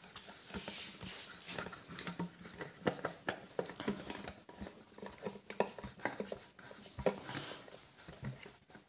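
Screwdriver tightening countersunk screws through the plastic jar of a homemade blender, with irregular clicks, scrapes and light knocks of metal and plastic as the jar is handled.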